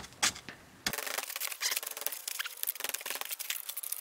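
Steel tool prying and scraping at a baked sand mold to break a freshly poured cast iron cylinder out of it: a few sharp knocks in the first second, then a steady gritty crunching and scraping as the sand crumbles away.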